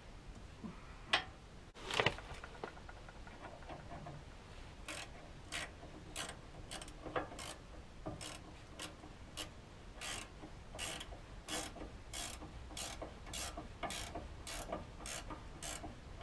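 Hand ratchet wrench working a nut on a car's front suspension, its pawl clicking in short runs about twice a second, coming faster toward the end. Two sharp metal knocks come about one and two seconds in.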